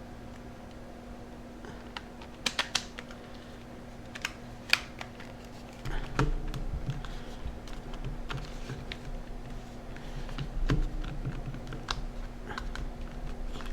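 Plastic parts of a Sharp Zaurus SL-6000D PDA being handled and fitted together: a few sharp clicks about two and a half seconds in, another near five seconds, then a busier run of light clicks, taps and handling bumps.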